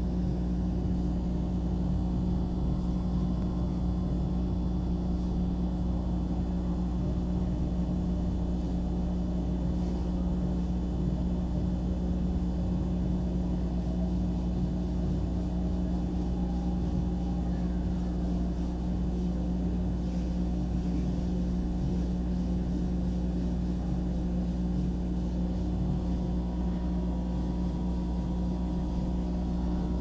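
Laser cutter running while it cuts a wooden board: a steady low hum from the machine, unchanging in level throughout.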